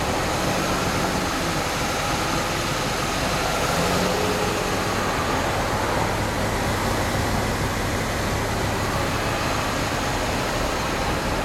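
Steady rumble of motor vehicles on a city street.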